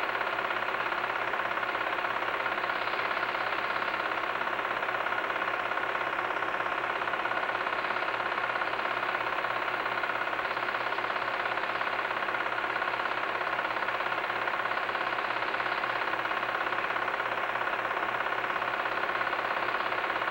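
Home-movie film projector running: a steady mechanical whirr with a fast, even clatter from the film-advance mechanism.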